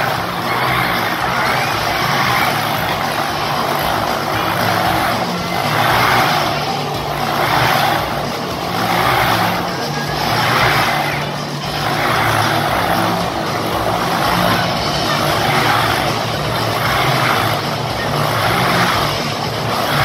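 Motorcycles running inside a steel-mesh globe of death, their engine note swelling and falling about every second or so as they loop around the cage.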